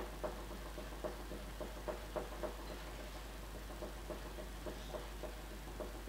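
A metal teaspoon stirring espresso in a glass mug, clinking lightly against the glass in a run of soft, irregular ticks a few times a second.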